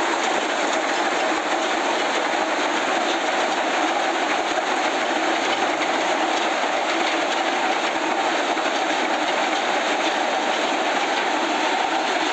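Rotary water-well drilling rig running while drilling, its engine and rotary drive making a loud, steady, unbroken mechanical noise.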